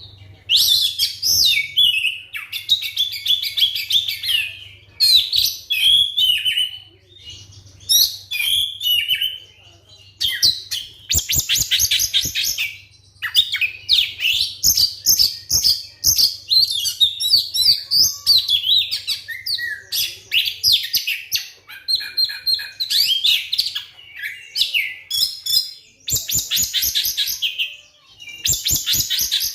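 Oriental magpie-robin (kacer) singing a loud, varied song of whistled phrases, rapid repeated notes and trills, with brief pauses between phrases.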